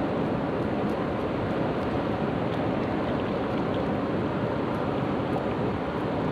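Hill stream rushing over rocks: a steady, even rush of water that doesn't change.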